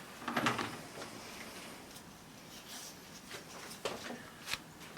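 Faint handling sounds of Teflon (PTFE) thread tape being wrapped onto a threaded pipe fitting: light rustles and a few scattered small clicks.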